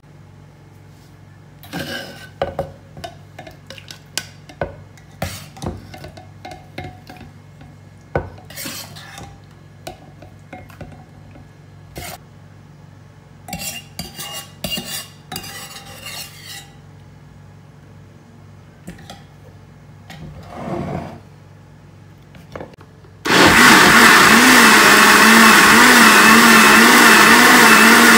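A metal ladle clinks and scrapes against a ceramic pot and a plastic blender jug as soup is spooned across. About 23 seconds in, a Philips countertop blender switches on and runs loudly and steadily, puréeing the mushroom soup, its hum wavering slightly.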